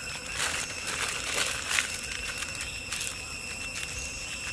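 Aluminium foil crinkling in short bursts as hands twist and crimp the end of a long foil-wrapped bundle.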